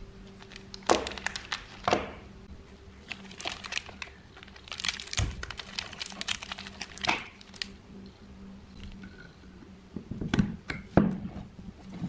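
Handling noise: irregular knocks, clicks and crinkling as objects are moved and set down, over a faint steady hum.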